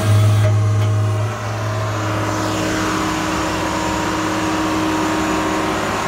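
MKT V-5E vibratory pile hammer with a timber pile clamp running on test: a loud, steady machine hum with a strong low drone, easing slightly about a second and a half in.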